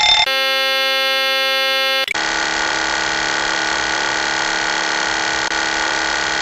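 Boeing 737 cockpit warning sounds: a steady, buzzer-like electronic tone for about two seconds, then a different continuous alarm tone that carries on.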